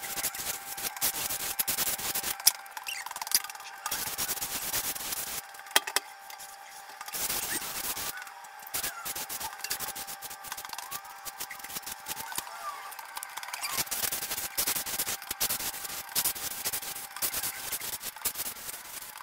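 Steel hand trowel scraping and rubbing over a cement mortar floor in irregular strokes, the finishing pass that presses the surface down and smooths out trowel marks to a glossy finish.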